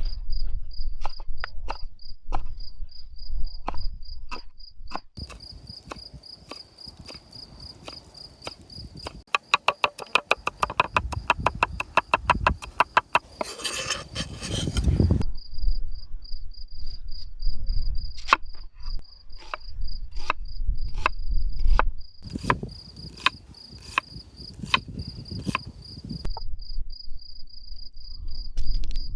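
Knife chopping green onions and then an onion, in separate strikes with a fast, even run of chops about ten seconds in. A cricket chirps steadily throughout.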